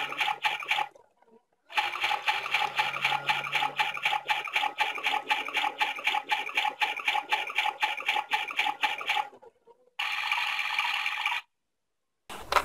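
Play Go toy washing machine sounding its electronic washing effect: a rapid, even clicking rhythm over a steady hum, which stops abruptly and restarts. Near the end a shorter, steadier sound follows and cuts off suddenly.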